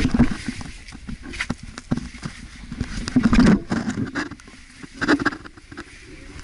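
Irregular scraping, knocking and rustling of someone clambering through a narrow, log-lined cave entrance shaft, with clothing and the camera rubbing against the walls; the loudest scrapes come about three seconds in and again about five seconds in.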